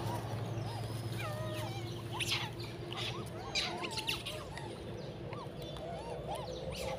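A troop of long-tailed macaques calling, with many short rising-and-falling chirps and coos overlapping, over a steady low hum.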